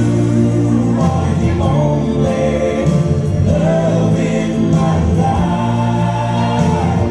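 Waltz song with a sung vocal over steady accompaniment.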